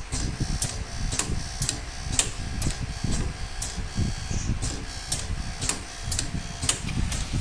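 Connector insertion and extraction force testing machine cycling in a loop: its pneumatic cylinders clicking about twice a second, with a low rumble underneath.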